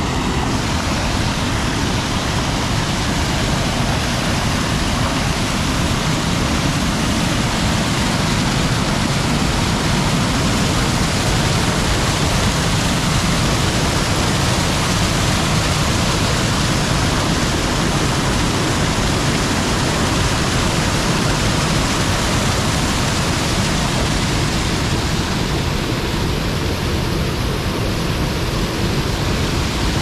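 A small waterfall, some 10 to 15 feet wide, with water pouring over it in a loud, steady rush, running strong after recent rain.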